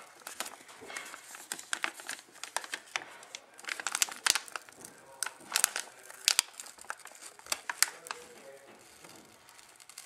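Plastic anti-static bag crinkling and crackling in the hands as a sticker is peeled off it, in irregular sharp crackles.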